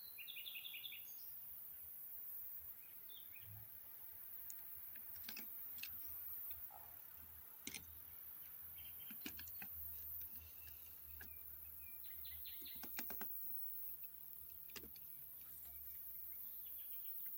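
Faint forest ambience with a few short, rapid bird trills, scattered sharp clicks, and a low distant rumble that comes in about halfway through.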